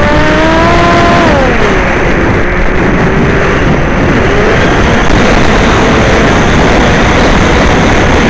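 Whine of an FPV aircraft's electric motors over loud wind rush on its onboard microphone. The pitch climbs, drops sharply about a second in, then slowly rises again as the throttle changes.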